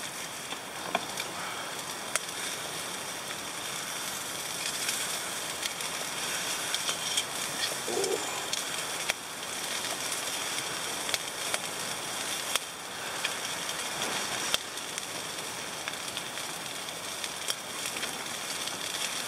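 Chicken sizzling on the wire grate over a charcoal shichirin: a steady frying hiss with scattered sharp pops and crackles.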